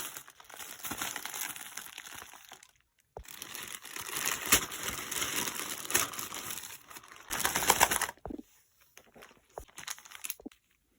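Packaging crinkling and rustling as it is handled: about three seconds of it, a short break, then about five seconds of louder crinkling, then a few light scattered clicks and rustles near the end.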